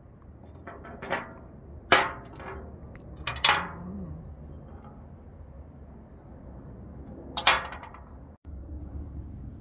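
Four sharp clinks of glass and metal, from a beer bottle and a chrome bottle opener handled against a glass tabletop, each with a short ring. They come about a second in, at two seconds, at three and a half, and near the end.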